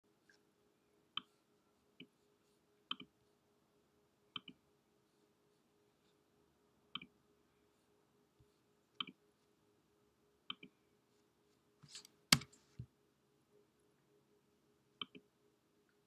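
Mouse clicks from a MacBook's Force Touch trackpad: single and paired clicks every second or two, with a louder, sharper click about twelve seconds in. A faint steady hum runs underneath.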